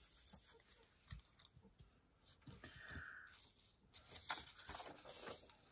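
Faint scattered clicks and soft paper rustles of hands handling crafting supplies, with a short hissy rustle about three seconds in.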